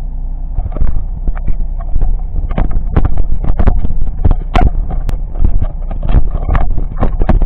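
Car running slowly, heard inside the cabin: a steady low engine rumble with loud, irregular knocks and rattles several times a second.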